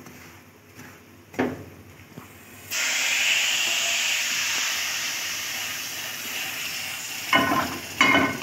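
Roasted semolina and hot sugar syrup coming together: a sudden loud hiss of steam about three seconds in that slowly dies down. Near the end, two short knocks.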